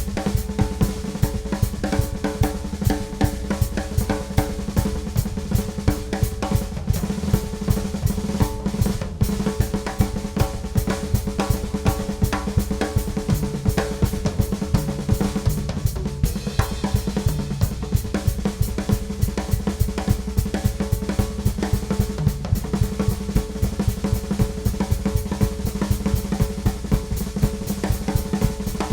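Ludwig Classic Maple drum kit played continuously with fast, dense strokes on snare, bass drum, toms, hi-hat and cymbals, including rolls.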